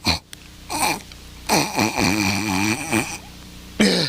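A costumed bear character sniffing and snorting hard through a clogged nose. There are two quick sniffs at the start, another about a second in, then a long wavering nasal snort in the middle and a last sniff near the end.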